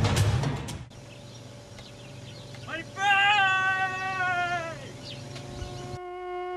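Film soundtrack: loud drum-heavy music stops about a second in, leaving a low hum. A single long pitched note is held for about two seconds and slides down at its end. A steady held tone begins near the end.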